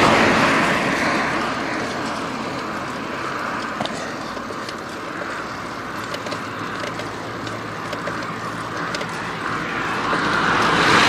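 A car passing close by, its tyre and engine noise fading over the first couple of seconds. Quieter steady road and wind noise follows, with a few faint clicks. Another vehicle's noise swells near the end.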